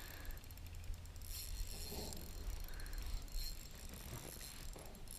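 Spinning fishing reel's drag giving line to a hooked carp as a fast, faint ticking buzz, under a low steady rumble.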